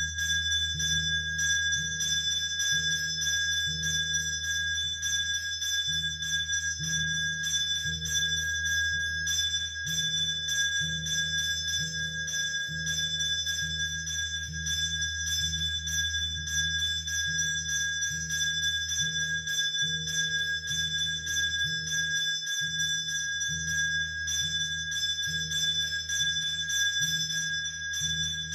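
Arati bell ringing continuously at a steady level, with a low throb about once a second beneath.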